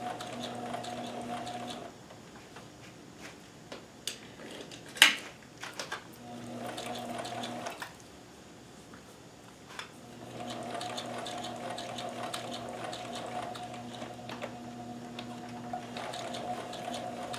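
Kenmore 158.1914 sewing machine with a walking foot, running slowly with a steady hum. It stops after about two seconds, runs again briefly, stops, and runs on steadily from about ten seconds in. The pauses hold a few clicks, one of them sharp and loud.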